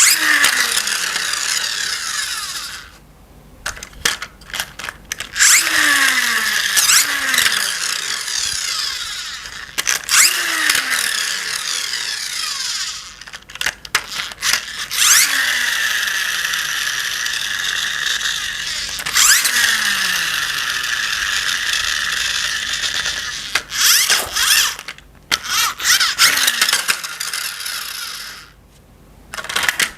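A small plastic toy mechanism whirring in several bursts of a few seconds each, with sharp plastic clicks in the gaps between them.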